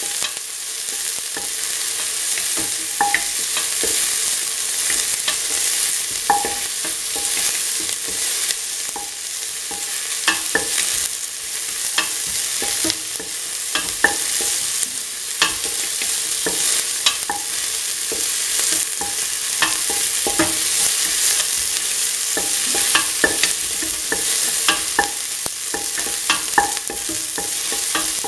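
Chopped onions sizzling in hot oil in a metal pan while being sautéed, with irregular scrapes and clicks of a stirring utensil against the pan.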